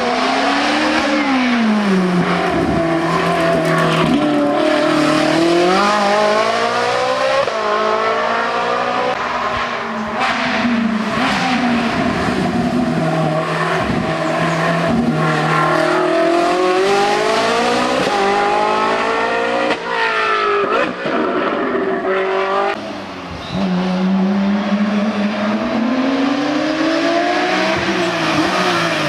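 Race car engine at full song on a hill climb, revs repeatedly rising and falling through gear changes and corners. The throttle lifts briefly about twenty and twenty-three seconds in.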